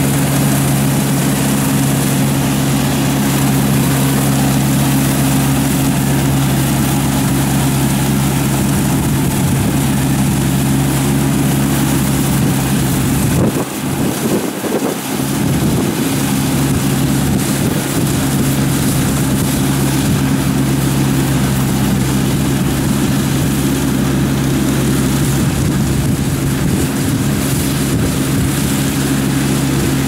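Combine harvester's diesel engine running steadily under load as it cuts lodged rice, a constant pitched drone. The sound dips briefly about halfway through.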